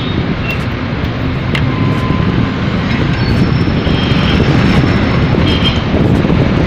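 Loud, steady low rumble of outdoor urban noise: running machinery and street traffic blended together, with a few faint short higher tones above it.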